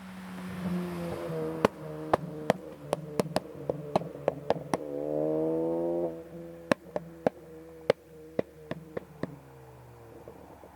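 Tuned 2014 Ford Focus ST's turbocharged 2.0-litre four-cylinder running at low revs while its exhaust fires a string of sharp, irregular pops and crackles produced by the engine tune. The engine note rises and swells briefly about five seconds in, then drops back.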